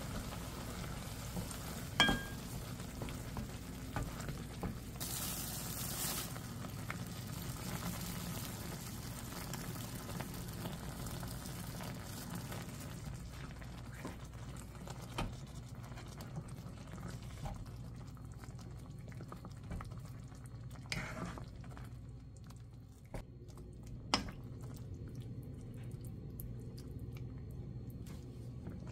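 Tomato curry sauce bubbling in a pot while a wooden spoon stirs it, with a sharp knock against the pot about two seconds in, a brief hiss around five seconds in, and a few lighter knocks later.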